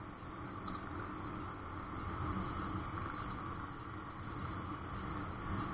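Steady engine and road noise of a moving vehicle, heard from on board while riding along.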